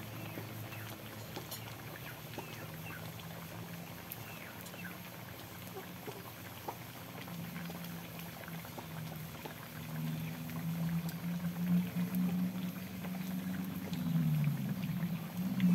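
Wood fire crackling under a wok of simmering coconut-milk rendang, with small scattered pops. A low droning tone from an unseen source runs underneath, swelling from about two-thirds of the way in and wavering in pitch near the end, where it becomes the loudest sound.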